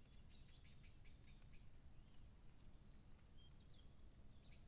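Very faint outdoor ambience: scattered short, high chirps of small birds over a low steady rumble.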